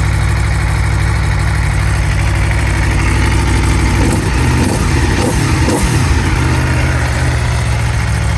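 Aprilia Tuono V4 motorcycle's V4 engine idling, with a few quick throttle blips about halfway through that send the revs up and back down before it settles to a steady idle again.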